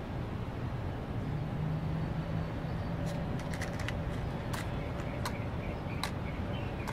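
Cigarette lighter struck several times: sharp, irregularly spaced clicks from about three seconds in. Underneath is a steady wash of street traffic noise.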